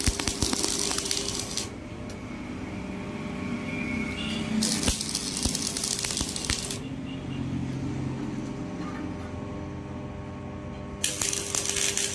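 Stick (arc) welding: the electrode's arc burns in three bursts of about two seconds each as steel rods are tack-welded to a flat bar, with quieter gaps between.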